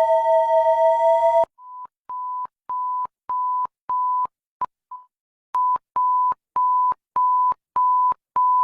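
Electronic emergency alert tones: a steady two-note alarm tone cuts off about a second and a half in, then a single-pitch beep repeats about one and a half times a second. The beeps fade in at first, break briefly with two short blips near the middle, then carry on loud and even.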